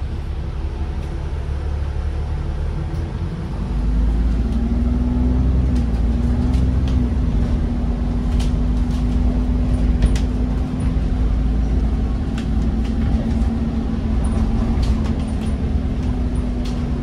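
Double-decker bus in motion, heard from the upper deck: a low engine rumble that grows louder about four seconds in, joined by a steady whine. Scattered clicks and rattles from the cabin.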